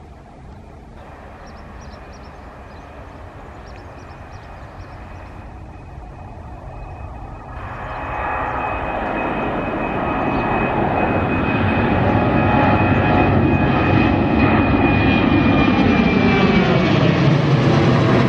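Boeing 737-800's CFM56-7B turbofan engines at takeoff thrust, growing steadily louder as the airliner climbs out and passes overhead. A high steady whine runs through the noise, and near the end the pitch falls as the jet goes over.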